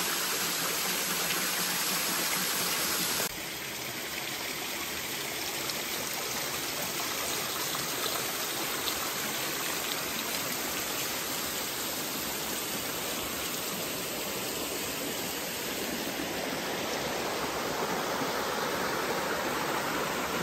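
River water rushing over rocks: a steady wash of water noise that drops slightly in level about three seconds in.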